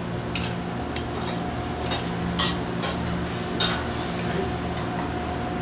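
Metal kitchen utensils, tongs and a ladle, clinking a few times against steel pans and a small pot while food is stirred. Under the clinks runs a steady kitchen hum.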